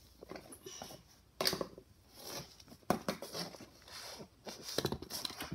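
Plastic toys being handled: scattered light clicks, knocks and rustles as a hand moves toy figures and a plastic toy plane, with a few sharper knocks.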